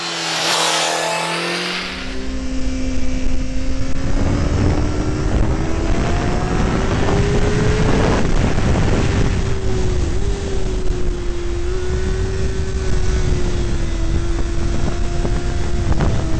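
A Honda CBR600RR inline-four sportbike engine at high revs on a racetrack. For the first two seconds a bike passes with its engine note falling. Then, heard onboard, the note climbs slowly for several seconds and holds steady, under heavy wind buffeting on the camera microphone.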